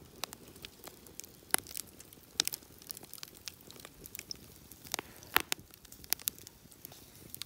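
Wood campfire crackling, with irregular sharp pops and snaps from the burning logs and embers, a few louder ones a little after the middle.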